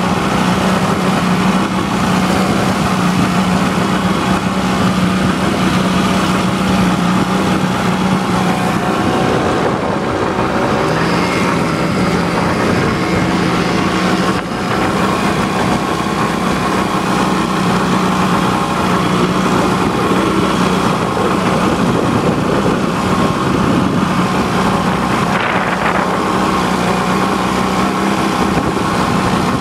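A small boat's engine running steadily at speed, with the rush of water against the hull. About ten seconds in the engine note dips briefly and climbs back.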